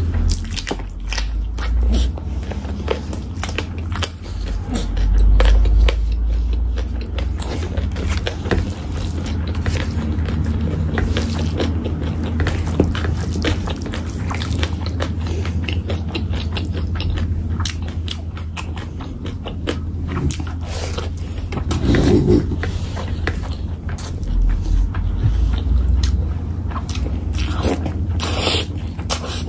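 Close-miked chewing and wet mouth sounds of someone eating rice and curry by hand: many small smacks and clicks. The fingers squelch as they mix rice and gravy on the plate. A low steady hum runs underneath.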